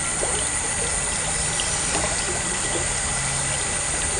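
Water running steadily through a drainage culvert, a continuous rushing trickle.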